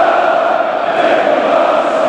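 Thousands of football supporters chanting together in a stadium stand, a dense, steady wall of voices.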